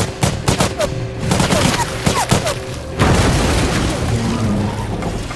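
Rapid rifle shots from a suppressed assault rifle over a tense film score. About three seconds in, a sudden loud crash of noise takes over and carries on, with a man's grunt.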